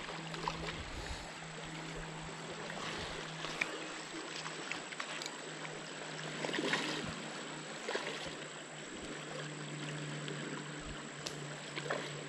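Shallow river water flowing: a steady rushing hiss, with a low steady hum underneath.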